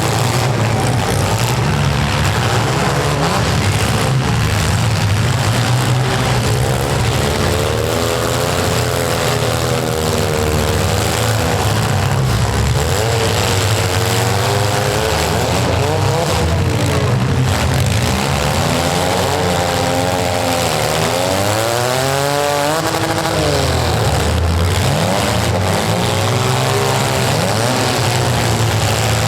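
Compact demolition-derby cars' engines revving hard, their pitch rising and falling, with one steep climb a little past the middle. A few short thumps from impacts come through.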